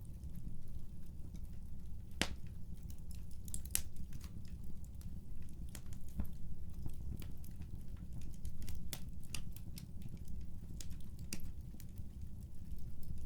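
Fireplace crackling: a steady low rumble with sharp pops and snaps at irregular intervals, the loudest about two seconds in.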